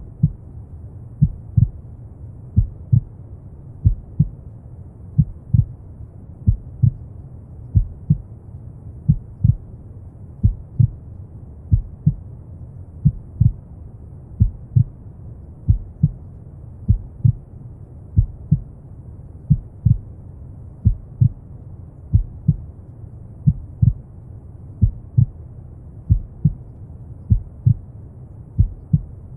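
Slow, steady heartbeat, each beat a deep double thump, about one every second and a third, over a continuous low rumble of brown noise.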